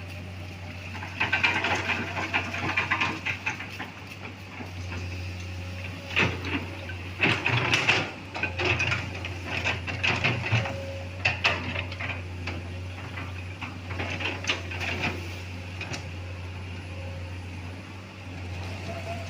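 Heavy diesel machinery running with a steady low drone, with irregular clanks and knocks, loudest between about six and twelve seconds in.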